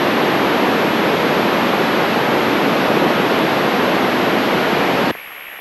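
Loud steady static hiss from a handheld FM radio with open squelch, no voice on the ISS repeater channel, cutting off suddenly about five seconds in.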